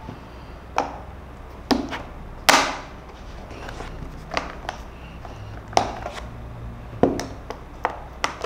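Hard plastic clicks and knocks as a screwdriver bit case and its bit tray are handled, about ten separate sharp taps, the loudest about two and a half seconds in.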